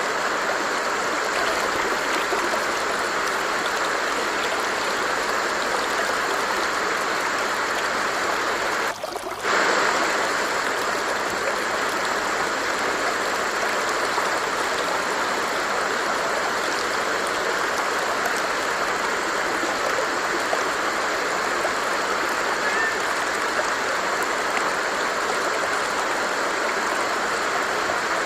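Water of a flowing stream rushing and babbling steadily, with a brief dip in the sound about a third of the way in.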